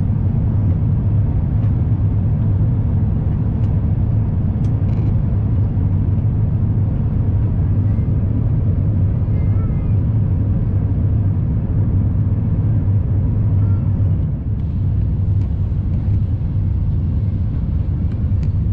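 Steady low rumble of engine and airflow noise inside an Airbus A350-1000 airliner cabin during its descent.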